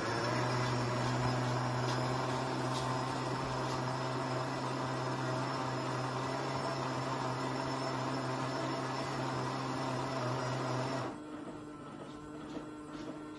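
Vintage Feber toy washing machine's small electric motor turning the drum: a steady hum that cuts off suddenly about eleven seconds in.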